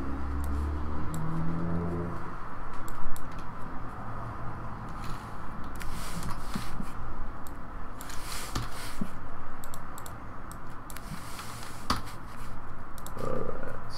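Handling noises: scattered sharp clicks and a few brief rustling or scraping bursts, with a low hum in the first couple of seconds.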